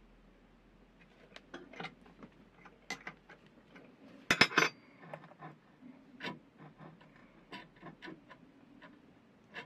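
Small metallic clicks and clinks as a steel grinding fixture and hand tools are handled and adjusted, with a louder clatter of metal on metal about four seconds in.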